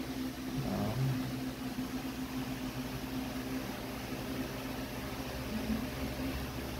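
Steady low machine hum with a faint even hiss, the room tone of a small room; no handling sounds stand out.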